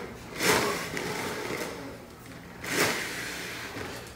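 A man blowing hard into a paper bag: two short rushes of breath about two seconds apart.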